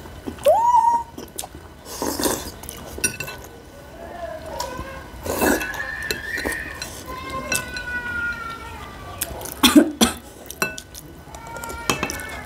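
Metal spoons and forks clinking and scraping against ceramic soup bowls in quick, irregular strikes while two people eat dumplings in soup, with a few brief slurps and short vocal noises.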